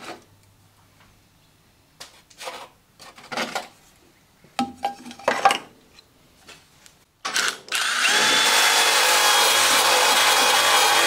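A few scattered handling knocks, then about seven seconds in a wire wheel on a cordless drill spins up and scrubs the rusty steel of a car's cowl plenum panel, a loud, steady harsh scouring with a high whine. The rust is being stripped back to bare metal.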